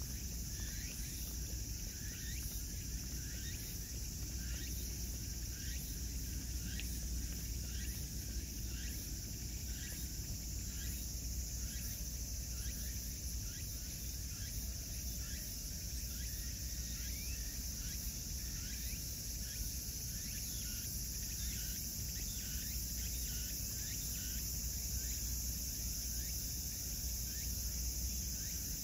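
Steady high-pitched insect chorus, with short rising chirps repeating about twice a second, over a low steady rumble.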